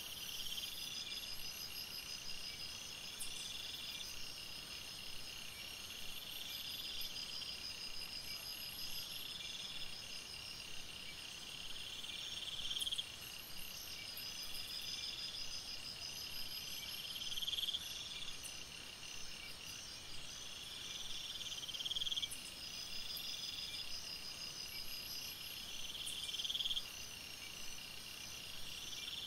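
Chorus of night insects: steady, rapid cricket-like trills, with a louder buzzing call that swells and cuts off about every four to five seconds, over a faint hiss.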